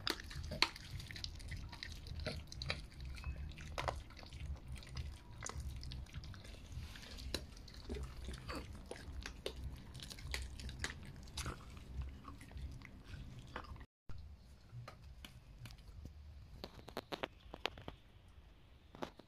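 Chinese Crested dog chewing a raw meaty bone: irregular wet bites and crunches. About fourteen seconds in the sound cuts off, and only fainter scattered clicks follow.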